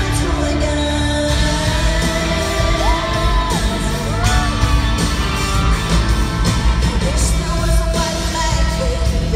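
Live band playing a pop-country song at arena volume, with heavy bass and drums under a female lead vocal, and shouts from the crowd.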